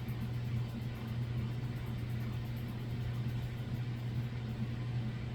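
A steady low hum that holds one pitch without change.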